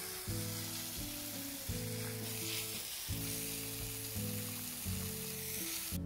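Steady hiss of water spraying from a garden hose's shower nozzle, washing down the surface of day-old concrete paving, under background music of low held notes that change about once a second. The hiss cuts off at the very end.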